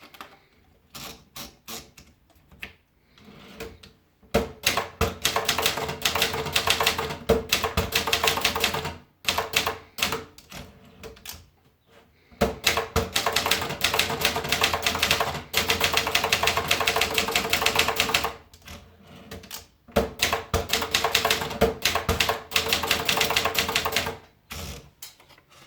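Vendex 750 typewriter being typed on: a few single keystrokes, then long runs of rapid clattering keystrokes broken by short pauses.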